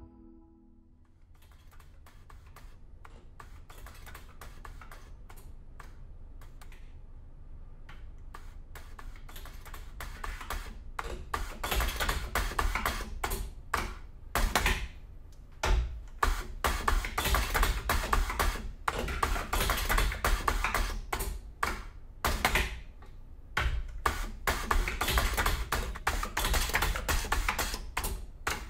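Bench-top aluminium tube closing machine and the aluminium tubes being handled at it: rapid, irregular clicking and metallic clatter over a low hum. The clicking starts faint and sparse, then comes thick and fast from about a third of the way in, with a few short pauses.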